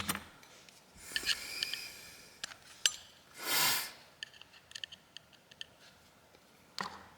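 Small tool and handling noises on a disassembled phone: light clicks, taps and scrapes, with one short breathy hiss about halfway through.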